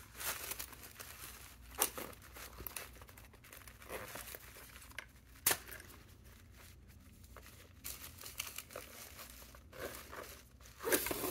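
Tissue paper and packaging crinkling and rustling in short, irregular bursts as a cosmetics pouch and its contents are handled in a gift box, with two sharp clicks about two and five seconds in.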